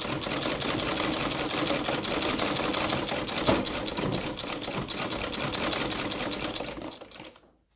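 Domestic treadle sewing machine running, a fast, even clatter of stitching, test-sewing after the thread tension has been tightened. It runs down and stops near the end.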